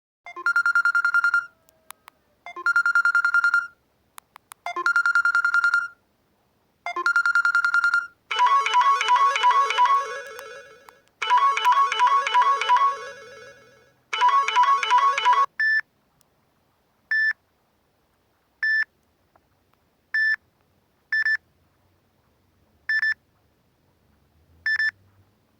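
Samsung Galaxy J1 Ace phone playing ringtones one after another. First comes a single-pitched electronic tone sounding four times, then a short multi-note chime melody three times, then a run of short single beeps.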